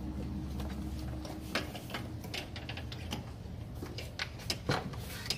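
Scattered light clicks and taps of hands working with tools and the inspection camera's probe, over a low steady hum.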